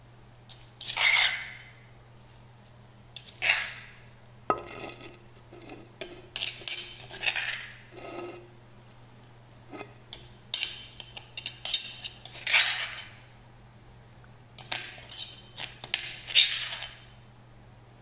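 A spoon scraping and clinking against a stone mortar and a plate in irregular strokes as pounded green mango salad is scooped out and spread, with one sharp click about four seconds in.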